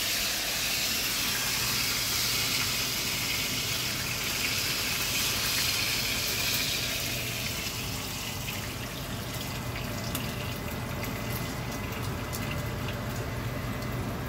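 Steak sizzling in oil in a frying pan: a steady hiss that grows a little fainter in the second half.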